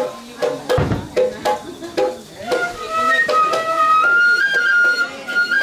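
Japanese bamboo transverse flute (shinobue) playing a slow melody with long held notes, over an even percussion beat. A single deep drum thump comes about a second in.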